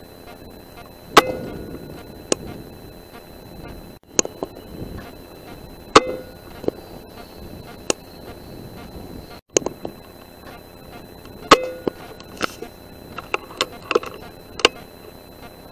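Air Arms S510 .177 PCP air rifle firing three times, each shot a sharp crack with a brief ring. Lighter clicks and knocks fall between the shots, over a faint steady high whine.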